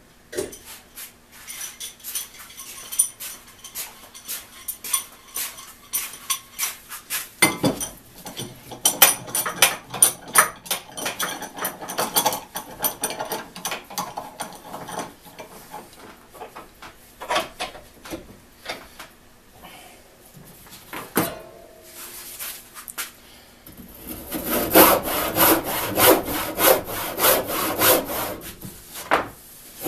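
A freshly sharpened antique crosscut hand saw cutting a wooden board in steady back-and-forth strokes, which start loudly about three-quarters of the way through. Before that come clicks and scrapes of a C-clamp being set and the board being handled.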